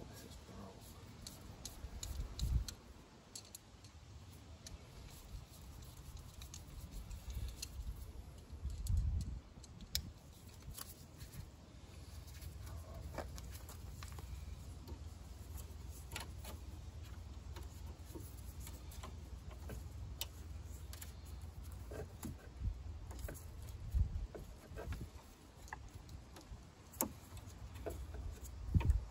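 Scattered small metallic clicks and ticks of a screwdriver tightening a jubilee clip (worm-drive hose clamp) on a power steering hose, with a few dull low rumbles.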